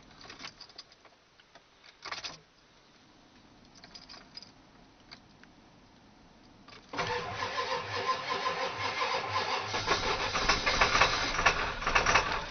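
A few faint clicks during the glow-plug wait, then about seven seconds in the 1997 Ford F-250's 7.3 L PowerStroke turbo diesel (International T444E V8) fires suddenly and runs rough: it is missing on at least one cylinder, which the owner blames on bad injectors.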